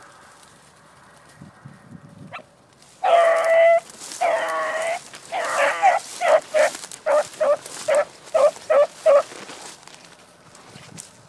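Dog vocalising: two drawn-out pitched calls, then a quick string of about eight short barks that stops about two seconds before the end.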